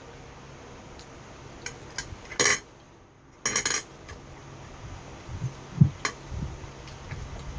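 Eating utensils clinking and scraping against dishes, in scattered short clicks with a couple of louder clatters, then a few dull low thumps near the end, the loudest of them all.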